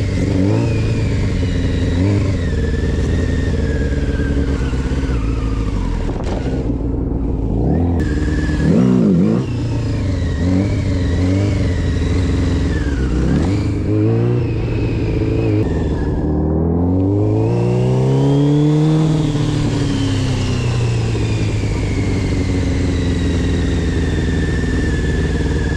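Motorcycle engine revving up and dropping back again and again as the throttle is opened to lift the front wheel for wheelies. About two-thirds of the way through the revs climb in several steps, then ease off slowly.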